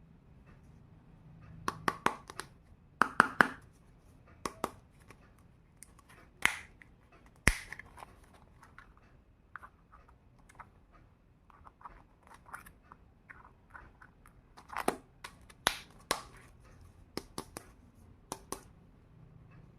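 Small plastic toy kitchen pieces and their packaging being handled, with irregular light clicks, taps and rustles, a few sharper clicks now and then.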